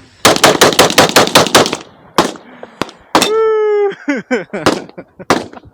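A rapid string of about a dozen gunshots in a second and a half, then a single shot. A held shout follows, then a few short exclamations.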